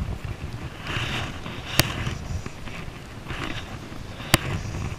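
Fly line being stripped in through the rod guides in short, quick pulls, a brief hiss with each pull, with two sharp clicks, one about two seconds in and one near the end.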